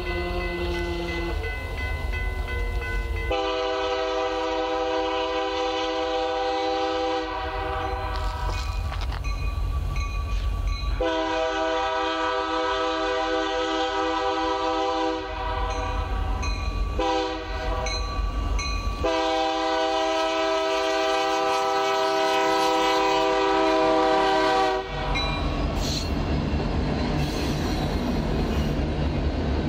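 Diesel freight locomotive's multi-tone air horn, on an SD60M leading the train, sounding a series of long blasts with a shorter one between them, the last held long and cut off about 25 seconds in. After that the locomotives' engines and wheels rumble close by as the train passes.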